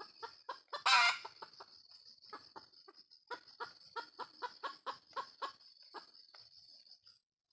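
Red junglefowl clucking in quick runs of short calls, about three a second, with one louder call about a second in. A steady high-pitched insect drone runs underneath and stops shortly before the end.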